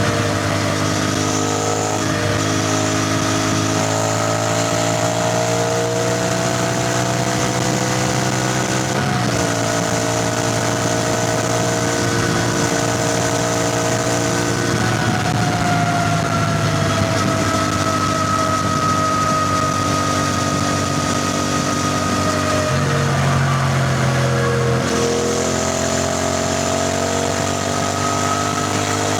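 CFMoto 450NK's parallel-twin engine and exhaust while riding. The engine note climbs slowly as the bike pulls, with gear changes about 9 seconds in and again near the end, and it eases off in between. Wind and road noise run underneath.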